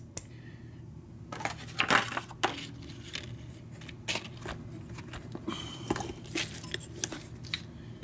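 Irregular light clicks and taps of small metal lock parts and tools being handled and set down on a workbench mat.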